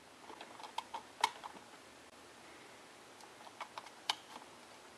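Small plastic clicks and handling noise from wire connectors being seated in a parking-sensor control module: a run of sharp clicks in the first second and a half, then another short run near four seconds.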